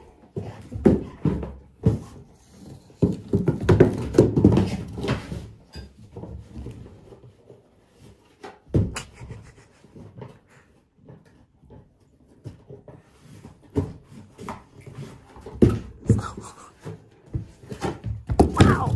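English Springer Spaniel puppy shaking and tossing a cardboard box: irregular thumps and scrapes of the box against the rug, busiest a few seconds in, with the dog panting.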